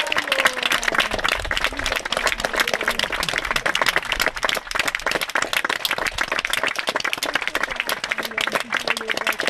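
Audience applauding: many hands clapping steadily, with a few voices faintly mixed in.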